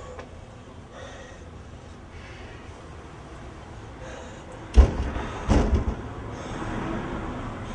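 Two loud bangs a little under a second apart: a single sharp one, then a quick cluster of knocks, with a rustling noise after them.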